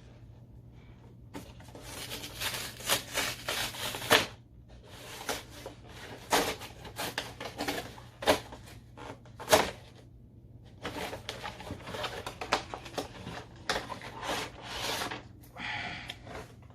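Pokémon card box packaging being handled and opened by hand: irregular bouts of rustling and crinkling with a few sharp clicks and snaps, over a steady low hum.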